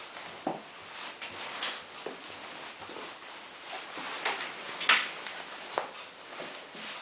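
Miele PW6055 Plus washing machine in its main wash, the drum turning a light load through water: a run of irregular sloshing swishes, the loudest about five seconds in.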